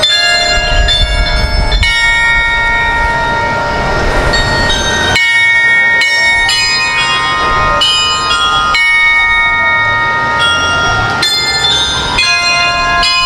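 Church tower carillon of some 45 bells playing a melody, its notes struck one after another and ringing on over each other.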